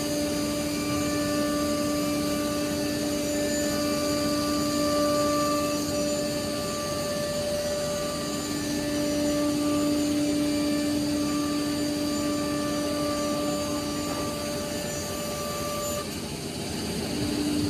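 CNC nesting router running, its spindle giving a steady whine over the hiss of routing and dust extraction as it cuts a wood-grain panel. The whine drops out for about a second near the end, then returns.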